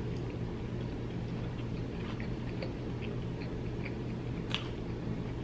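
Close-miked chewing of a bite of chili cheese dog: soft, scattered mouth clicks and smacks, with one sharper click about four and a half seconds in, over a steady low hum.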